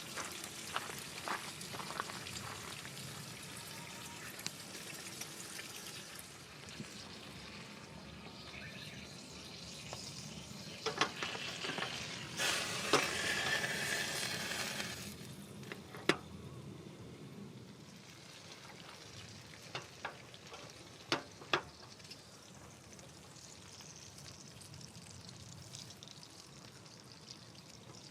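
Food sizzling in a pan over a camp stove, a steady hiss with scattered light clicks of utensils, swelling louder for a couple of seconds about halfway through.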